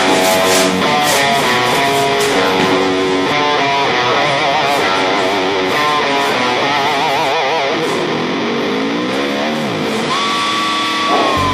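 Background music led by guitar, possibly electric, playing melodic lines with wavering held notes; a note slides up and back down a little before the end.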